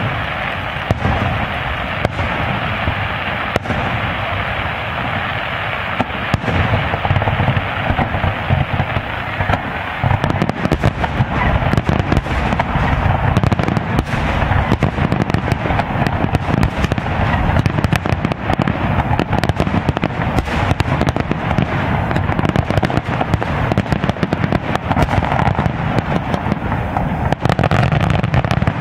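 Aerial fireworks shells bursting in quick succession: many overlapping bangs and crackles, which come thicker and faster about a third of the way in.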